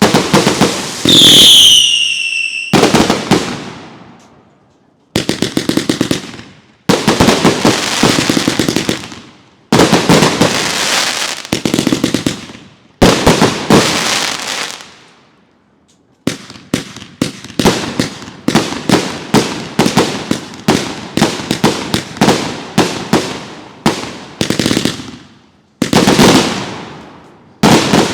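Consumer fireworks going off one after another: sharp bangs, each trailing off in a crackling tail. About a second in, a whistle falls in pitch. In the second half the bangs come quickly, several a second, like a multi-shot cake firing.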